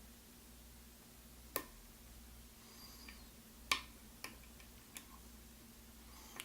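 Lock pick working the pins of an Alfa (GeGe) oval pin-tumbler cylinder: about five faint, sharp, irregular clicks as the pins are lifted, the loudest near the middle, over a low steady hum. This is pin-by-pin picking on a binding pin 5, just before the core gives a little movement.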